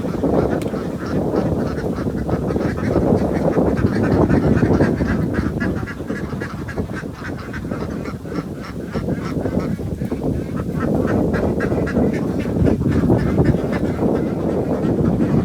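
A flock of poultry calling in a dense, continuous chorus of overlapping quacking and honking calls.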